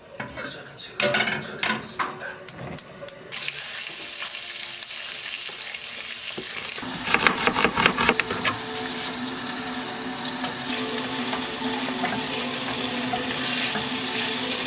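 Food sizzling in a hot frying pan. The sizzle starts suddenly about three seconds in, after a few clicks, and grows steadily louder, with a quick run of utensil taps around the middle.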